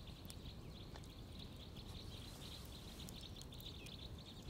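A flock of small birds twittering faintly, many short high chirps overlapping, as they gather together to migrate south.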